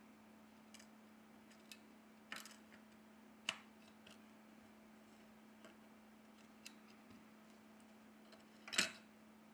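A few small, sharp clicks and taps as the Redmi Note 9's motherboard is handled and pressed into the phone's frame. The loudest click comes near the end. A faint steady hum runs underneath.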